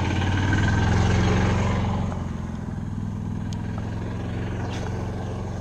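Golf cart engine running close by, a steady low drone, loudest about a second in and then a little quieter.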